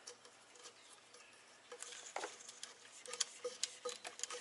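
Plastic zip tie being fed through a connector bracket and pulled through its ratchet head: a run of small, quick clicks and ticks that gets busier about halfway through.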